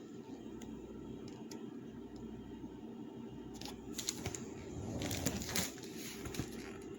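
Scattered light clicks and rattles from a hard-shell plastic suitcase being handled, thickening about four seconds in and thinning out again near the end, over a steady low hum.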